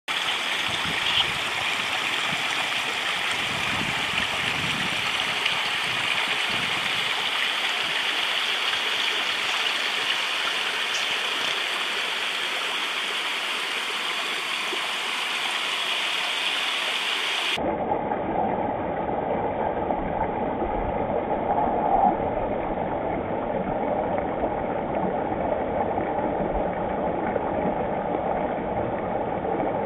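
Creek water rushing steadily. About two-thirds of the way through, it switches abruptly to a lower, duller rush.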